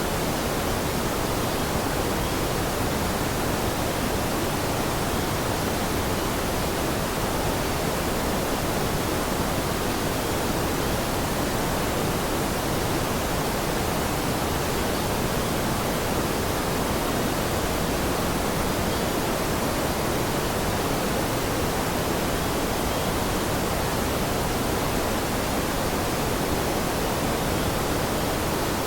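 Steady rushing water: an even, unbroken hiss that stays the same throughout.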